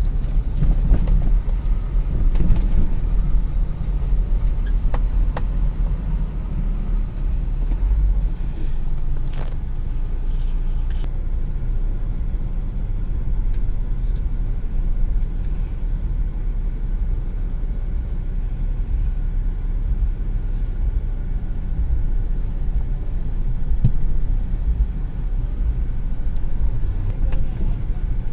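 Steady low rumble of a motor vehicle on the road, with a few short clicks.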